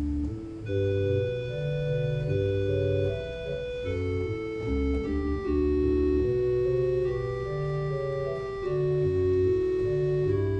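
Organ playing slow, sustained chords over a moving bass line, the notes held steady without fading and changing about every second or two.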